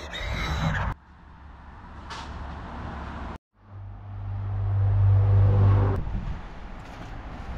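A motor vehicle's engine running with a steady low hum, growing louder for about two seconds before it breaks off, over outdoor background noise.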